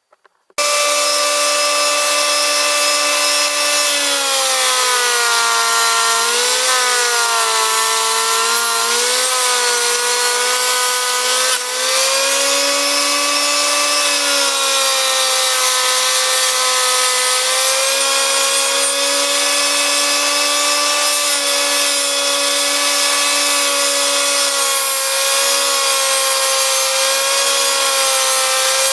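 Electric hand planer, mounted as a homemade vertical planing machine, running at full speed with a steady high whine that cuts in about half a second in. Its pitch sags and wavers for several seconds a few seconds in and dips briefly near the middle, as the cutter drum takes load planing wood.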